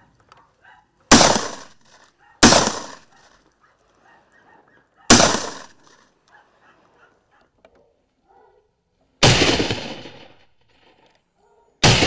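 Five shotgun shots fired at a rabbit, spaced irregularly with the last near the end, each a sharp crack trailing off in a short echo.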